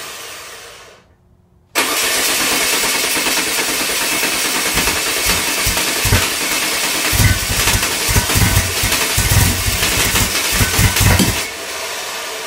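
Freshly built 2054cc air-cooled VW Type 1 stroker engine running on a test stand at raised revs for its cam break-in. The sound drops out briefly and cuts back in suddenly about two seconds in, with uneven low thuds through the second half, then falls away near the end.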